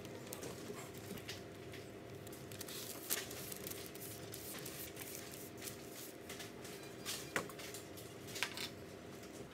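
Light handling sounds of hands pressing biscuit letters onto a cream-covered cake on parchment paper: faint rustles and a few small clicks, the sharpest about three seconds in and near the end, over a steady low hum.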